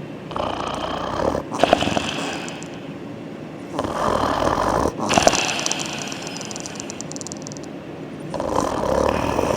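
German Shepherd dog snoring in deep sleep, worn out after a day of heavy exercise: about three slow breaths, each with a snoring inhale and a breathy exhale, spaced roughly four seconds apart.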